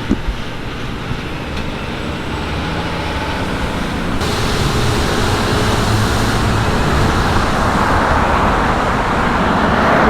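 Road traffic noise: vehicle engines and tyres going steadily, getting louder about four seconds in as something heavier passes close.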